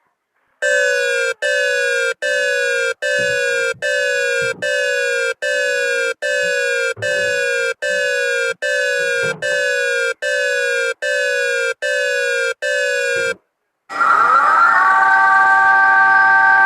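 Emergency alert system alarm tones: about sixteen pitched beeps, each sliding slightly downward, repeat roughly every 0.8 seconds. After a short gap near the end, a steady multi-note alert tone begins with a brief upward slide into pitch.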